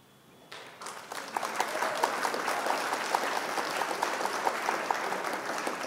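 Recorded applause sound effect: a crowd clapping that swells in about half a second in, holds steady for about four seconds and cuts off suddenly.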